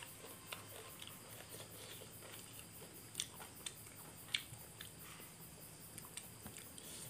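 Faint chewing as a man eats raw beef salad with sticky rice by hand, with a few soft scattered clicks of mouth and fingers.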